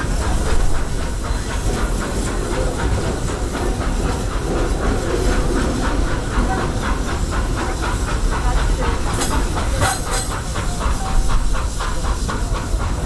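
Steam train on the move, heard from an open-sided passenger coach: a steady low rumble with an even rhythmic beat, and two short, sharp high bursts about nine and ten seconds in.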